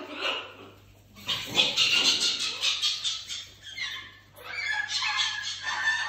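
Parrots screeching in rapid, repeated calls, breaking off briefly about a second in and again about four seconds in.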